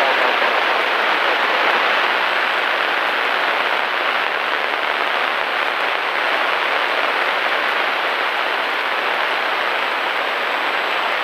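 Steady cabin noise of a Cessna 172 Skyhawk in level flight, the engine and rushing air merging into an even hiss.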